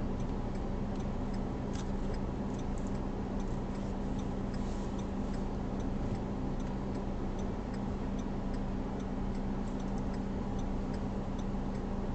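Car's turn-signal indicator ticking at a steady, even rate inside the cabin, over the low steady hum of the car idling at a standstill.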